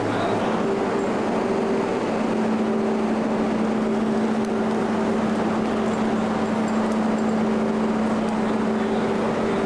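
Steady rumble of a car ferry's engines and machinery heard on board, with a steady hum that sets in about two seconds in.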